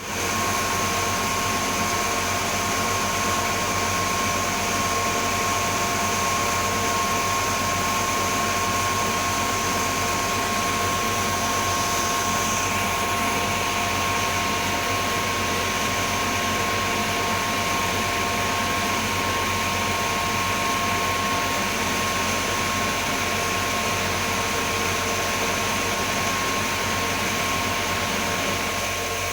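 Cold-room humidifier and air-conditioning fans running with a steady whir and a thin, constant whine.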